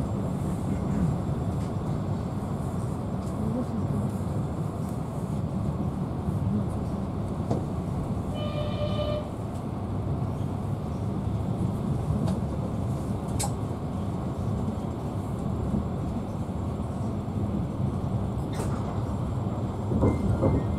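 Steady low rumble of a passenger train running on the rails, heard from inside the carriage. A brief steady pitched tone sounds for about a second roughly midway, and a couple of sharp clicks come later.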